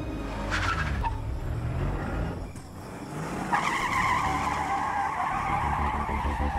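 A car's tyres squealing as it takes off hard, over the low run of its engine. A short squeal comes about half a second in, and a long, loud squeal starts about halfway through.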